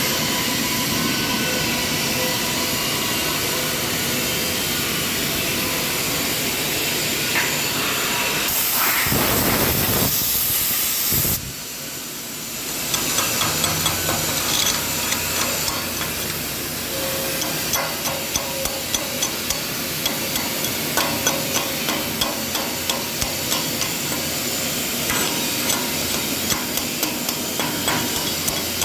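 CO2 (MIG) welding arc, crackling and spitting with rapid irregular ticks through the second half. Before that a steady hiss, with a louder hiss that cuts off suddenly about eleven seconds in.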